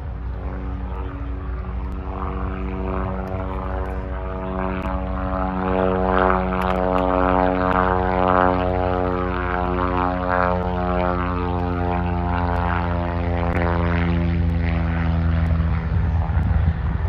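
Ranger 6-440 air-cooled inverted inline-six engine of a Fokker D.VII replica biplane running steadily in flight with its propeller, a droning note that grows louder about five seconds in.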